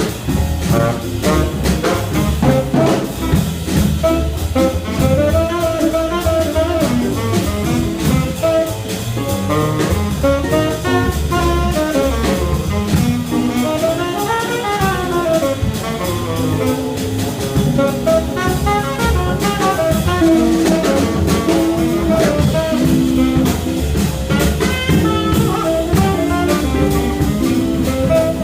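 Jazz quintet playing live: a lead melody line with quick rising and falling runs over a busy drum kit and a walking low bass line.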